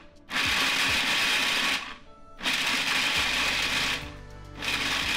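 11-cup food processor pulsing three times, about a second and a half each, its blade chopping roasted almonds and pecans into a coarse meal: a loud, rough grinding whir.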